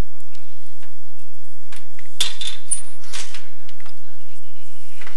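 Scattered clicks and light clatter over a steady low hum, with two louder rustling noises about two and three seconds in.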